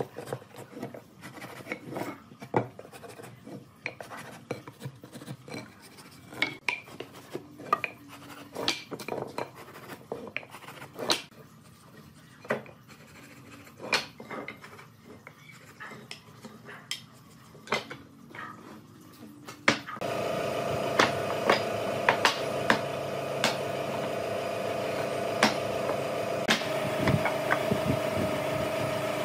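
Irregular light knocks, clicks and scrapes of hand work on wooden pieces. About twenty seconds in, a steady motor hum starts suddenly and runs on under further clicks.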